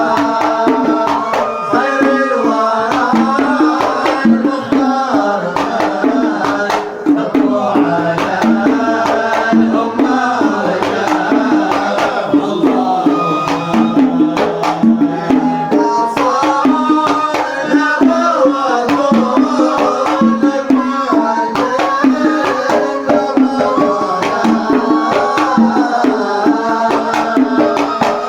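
Kuwaiti sawt music: a melodic line with dense, quick hand-drum strokes running under it.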